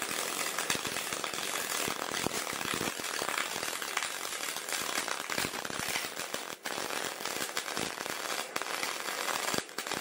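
CO2 semi-automatic (MAG) welding arc crackling and spattering steadily on steel during the final pass of a multi-layer weld. It dips briefly twice, about two-thirds of the way through and again near the end.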